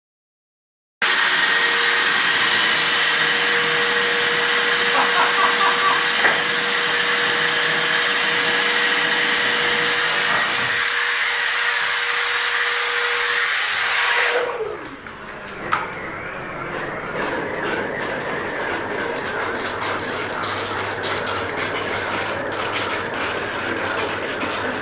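Water drilling machine's motor running at speed with a steady whine. About 14 seconds in it is switched off and its pitch falls as it winds down, then a crackling, clicking noise follows.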